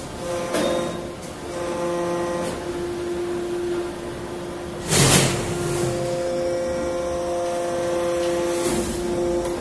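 Hydraulic salt block press running, its pump unit giving a steady whine. A short, loud rush of noise comes about five seconds in, and a weaker one near the end.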